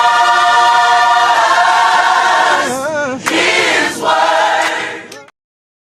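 Choir singing a gospel song in several parts, holding one long chord on "trust" that wavers in vibrato, then a shorter phrase; the singing cuts off suddenly near the end.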